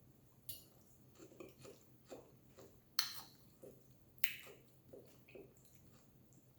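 A person chewing a mouthful of rib meat with wet mouth smacks, irregular and close up, with a few sharper smacks about three and four seconds in.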